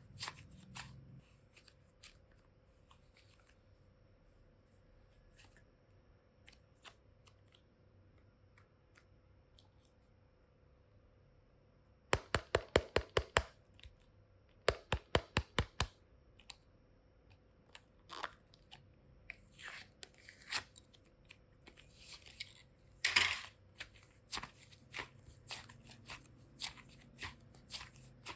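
Hands handling small plastic toy cases and containers: scattered light clicks and taps, two quick runs of about eight sharp clicks about halfway through, then busier clicking and rustling with one louder crackle near the end.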